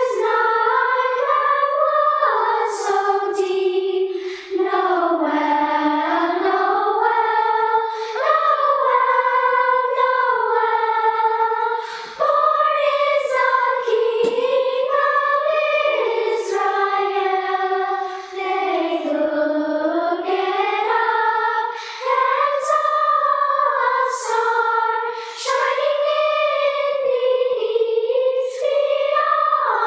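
Youth choir singing in high voices: a slow melody sung in phrases with short breaks between them.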